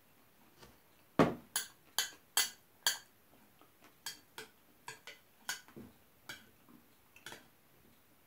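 Metal spoon clinking and scraping against a bowl while food is stirred and scooped. A quick run of five sharp clinks comes about a second in, followed by softer, scattered ones.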